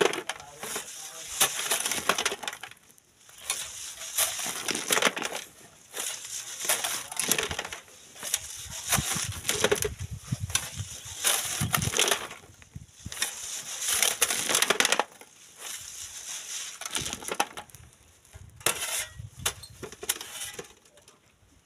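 Shovel scraping into sand and gravel and tipping it onto a wire-mesh sieve, with stones clinking and sand hissing through the mesh over a wheelbarrow. It comes in repeated gritty bursts about every two seconds.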